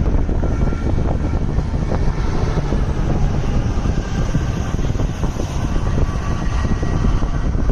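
Strong storm wind rushing and buffeting the microphone: a loud, steady rush, heaviest in the low end, with constant flutter.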